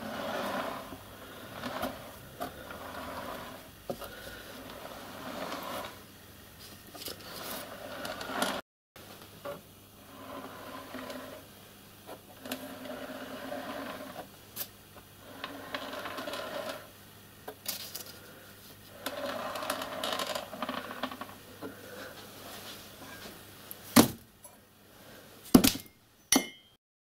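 Steel anvil made from a piece of tram rail being handled and moved about on a wooden workbench, with scraping and clinking metal, then three sharp metallic strikes near the end.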